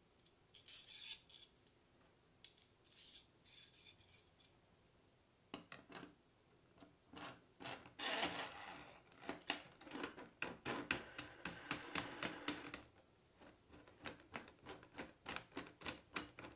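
Metal threaded rod scraping and rubbing as it is slid through holes in the wooden arms of a homemade scroll saw, in several strokes. In the last few seconds a knob is spun onto the rod's thread, giving a run of quick, light clicks, about three or four a second.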